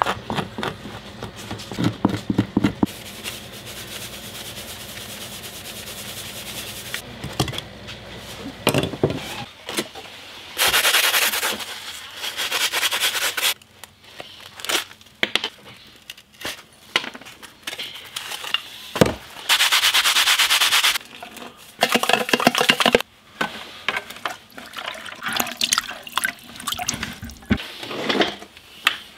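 Hands working a fresh squirrel skin and hide: a string of short scraping, rubbing and knocking sounds, broken twice by a few seconds of steady hiss.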